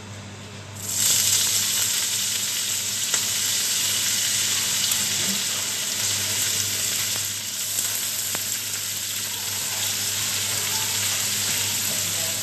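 Chopped garlic and onion tipped into hot oil in a frying pan, starting to sizzle suddenly about a second in and then sizzling steadily: the start of a sauté. A low steady hum runs underneath.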